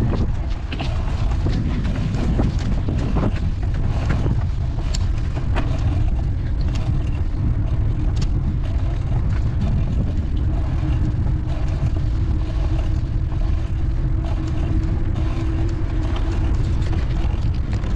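Wind buffeting the microphone while cycling along a road, mixed with traffic and road noise, a faint steady hum and scattered light clicks and rattles.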